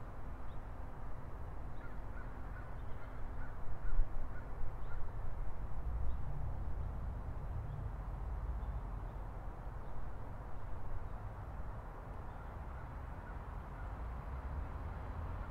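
Steady low rumble of city traffic, with a few bird calls a few seconds in.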